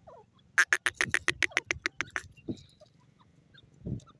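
Grey francolin calling: a rapid run of about a dozen sharp notes, some eight a second, lasting about a second and a half. Two softer, lower sounds follow.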